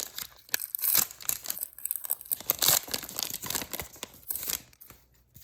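Foil wrapper of a Pokémon booster pack crinkling and tearing as it is ripped open by hand. It is a dense run of sharp crackles that dies away near the end.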